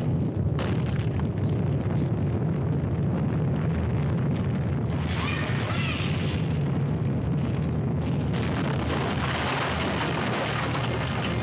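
Earthquake sound effect: a continuous deep rumble with scattered cracks and crashes as a building shakes. From about eight seconds in, a louder hissing crumble of falling debris joins it.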